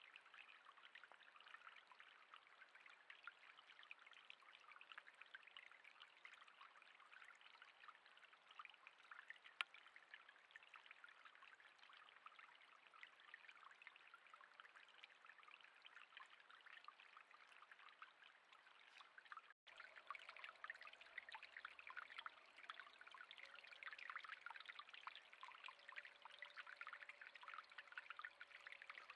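Faint, steady crackling patter of water, with a single sharp click about ten seconds in.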